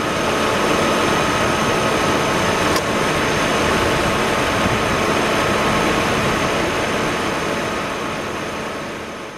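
1998 Volvo V70's inline-five engine idling close up in the engine bay, its accessory belt turning the air-conditioning compressor, whose re-shimmed clutch stays engaged. A steady mechanical whir with a faint tick about three seconds in, fading out near the end.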